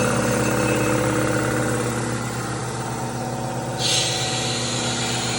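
Small electric air compressor running steadily as it pumps air into the newly plumbed tanks. A hiss comes in suddenly about four seconds in and continues.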